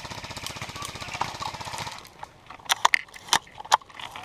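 Airsoft gun firing a full-auto burst of about two seconds: a fast, even rattle of shots. Several sharp single cracks follow about three seconds in.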